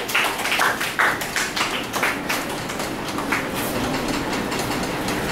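A quick, irregular run of taps and thuds from fighters' feet and blows in a martial-arts sparring bout on a hard floor. It gives way to a steady murmur of the hall over the last couple of seconds.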